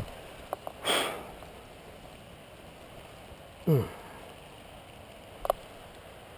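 A person's sharp breath out about a second in, then a short groan falling in pitch near the middle: the pilot winded after a rough landing. Small clicks and rustles of harness and grass come in between.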